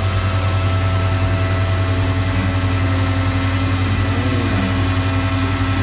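Flatbed tow truck's engine running steadily at a raised idle, a low drone with a fast, even pulse, while the winch pulls a car up the tilted bed.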